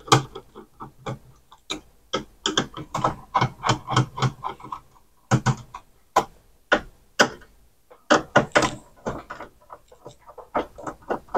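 A run of irregular clicks, taps and knocks: a screwdriver and hands handling the metal and plastic parts inside an opened CD changer.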